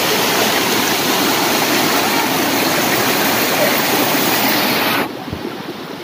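Rushing water of a rocky mountain stream: a steady, loud rush that drops abruptly to a quieter level about five seconds in.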